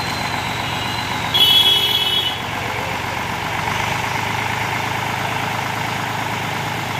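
Eicher tractor diesel engine running steadily. About a second in, a brief shrill sound of several high tones, lasting about a second, rises above the engine.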